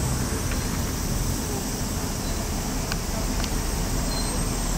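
Steady road noise from passing street traffic, with a few faint clicks.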